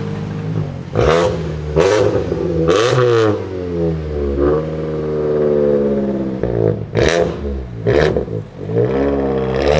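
Mini with a straight-pipe exhaust revving repeatedly, its engine pitch rising and falling through several blips. About five sharp cracks cut through the revs, three in the first few seconds and two more near the end.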